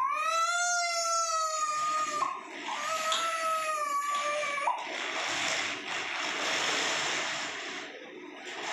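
A baby's two long, high-pitched squeals of about two seconds each: the first rises and falls, the second holds steadier. A few seconds of hissing noise follow.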